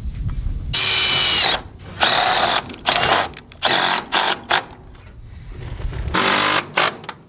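Cordless drill driving screws to fasten steel roof trim, run in about six short bursts, the first the longest with a rising whine as the motor spins up.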